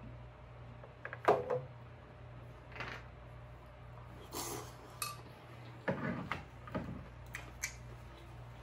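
A metal fork clinking and tapping against a glass bowl, the sharpest clink about a second in, with chewing sounds in between as shrimp ceviche is eaten.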